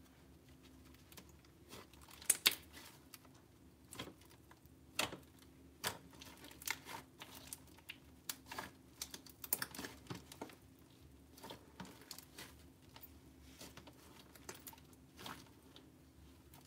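Hands kneading, folding and stretching soft butter slime: faint, irregular sticky clicks and pops as it is pressed and pulled, with the loudest pops about two seconds in.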